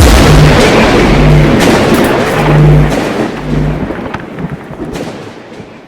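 Loud intro soundtrack of crashing, explosion-like noise over a low bass note that repeats about once a second, fading out over the last few seconds.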